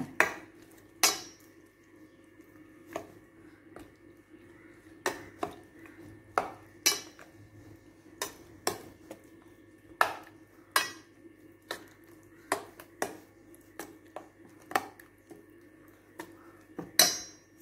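A spoon stirring raw eggs into soaked oats in a stainless-steel bowl, clinking against the metal sides about once a second in an uneven rhythm. The clinks are loudest about a second in and near the end.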